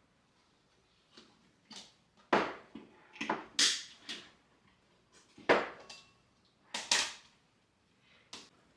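Irregular knocks, clatters and short rustling scrapes of objects being handled, the loudest about two and a half and five and a half seconds in.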